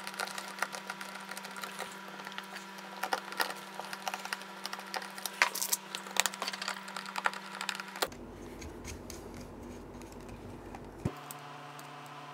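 Small, irregular clicks and taps of a screwdriver and small bolts being worked into 3D-printed plastic engine parts, over a steady background hum. About eight seconds in the clicking stops and only a single tap follows.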